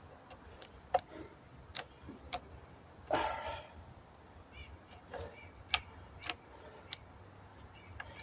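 Scattered light clicks and taps of a tool working the clamp screws of an air-rifle suppressor as they are tightened, with a short rustle about three seconds in.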